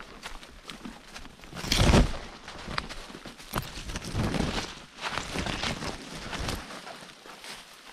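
Footsteps on a woodland trail, crunching and rustling in an uneven rhythm, with a louder thump about two seconds in.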